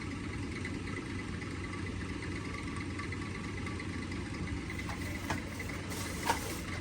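Steady low mechanical hum, like an engine running in the background, with a few light clicks about five and six seconds in.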